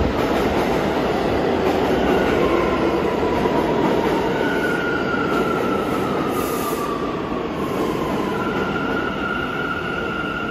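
New York City subway train running through the station: a dense rumble of wheels on rail with thin, high squealing tones that drift slightly in pitch. It fades gradually as the train moves off.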